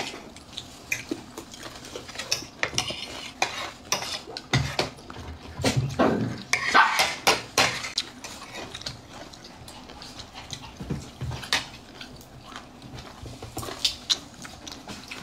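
Metal fork and spoon clinking and scraping against a ceramic plate of rice during eating. The sound comes as irregular clicks and scrapes, busiest around the middle.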